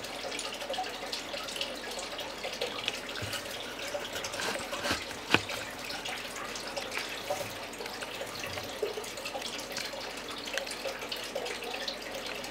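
Hybrid Cuban rock iguana tearing and chewing leafy greens such as collard greens and chard, a run of small irregular wet crunches and crackles with one sharper click about five seconds in.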